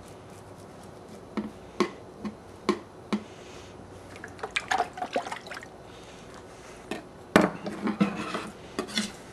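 Knife back scraping scales off a herring and knocking on a wooden cutting board: irregular short scrapes and taps, the loudest about seven seconds in.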